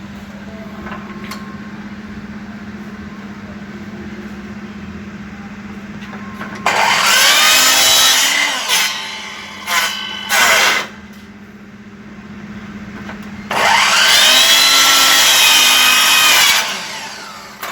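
Electric power saw cutting baseboard: the motor spins up, runs for about a second and a half and winds down, gives two short blips, then makes a second, longer run of about three seconds. A steady low hum runs underneath.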